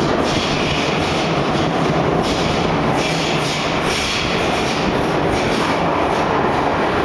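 Beijing Subway Line 2 train approaching through the tunnel, unseen: a steady loud rumble of wheels on rail, with irregular clatter.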